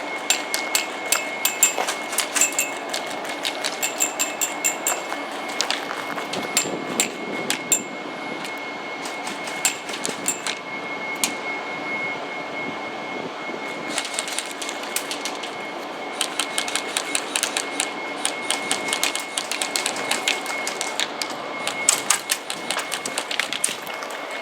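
Airsoft guns firing: sharp cracks, some single and some in rapid full-auto bursts, with a steady high-pitched tone underneath.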